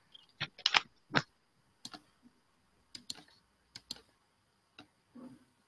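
Irregular sharp clicks, about a dozen, some in quick pairs and the loudest in the first second and a half, from someone operating a computer.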